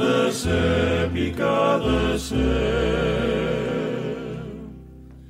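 Havanera sung by a vocal group in harmony, holding a long note with vibrato over low accompaniment. The music fades away in the second half.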